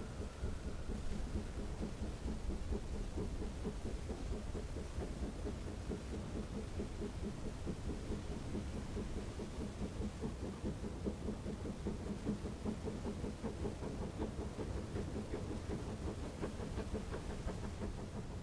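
Narrow-gauge steam train running past at a distance, heard as a steady low rumble mixed with wind buffeting the microphone.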